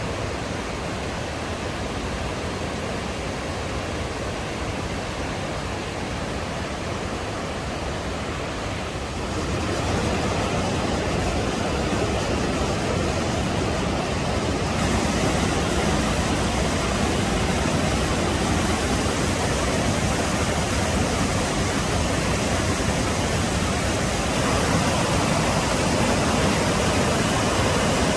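Waterfall rushing steadily, running full after recent rain. The roar gets louder about a third of the way in and brighter about halfway through.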